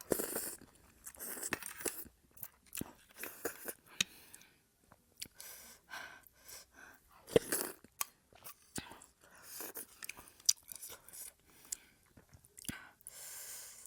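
Close-miked chewing of thukpa noodle soup and momo dumplings: an irregular run of short wet clicks and bites, with no speech.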